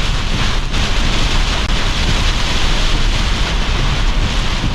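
Thunderstorm gust winds of about 70 km/h rushing over the microphone, a loud steady roar of wind noise.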